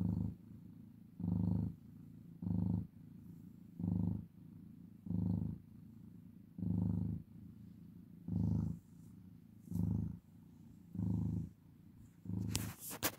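Orange tabby domestic cat purring while having its chin and cheeks scratched, a content purr that swells in a low pulse with each breath, about once every second and a quarter. A brief burst of sharp clicks near the end.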